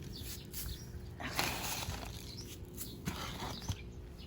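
Two short rustling, scraping bursts from hands-on planting work in garden soil, with a few light knocks and faint bird chirps.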